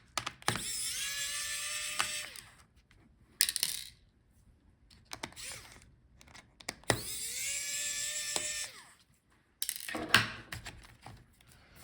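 Small electric screwdriver backing out the laptop battery's screws: its motor whines twice, about two seconds each time, once near the start and again near the middle. Small clicks and knocks of handling come between.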